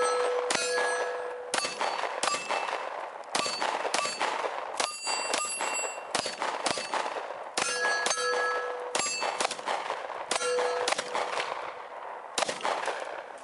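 Strings of pistol shots from a Gen 4 Glock, about twenty in all with short pauses between groups, several of them followed by the metallic ring of hit steel targets. The sound fades out at the very end.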